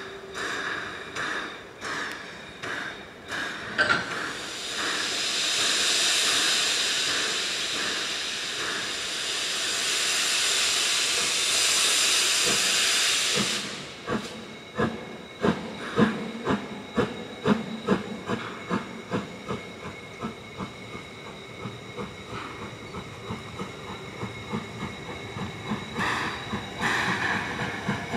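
Narrow-gauge steam locomotive starting a train. A few slow exhaust chuffs are followed by a loud, steady hiss of steam from the open cylinder drain cocks for about ten seconds, which cuts off suddenly about halfway through. Then come sharp exhaust beats that quicken as the engine pulls away.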